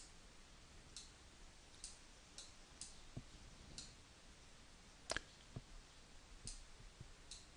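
Faint computer mouse clicks, about ten of them, spaced irregularly over near silence.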